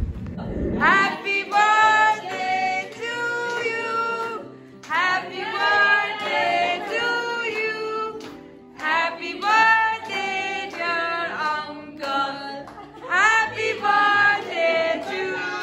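Several voices singing a birthday song in four sung lines, with steady low notes underneath.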